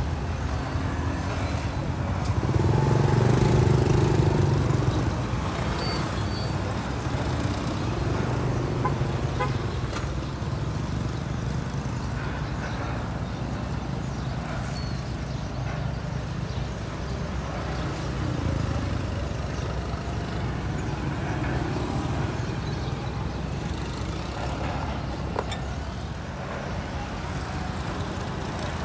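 Road traffic noise: a steady rumble of passing vehicles, with one louder vehicle going by about three seconds in.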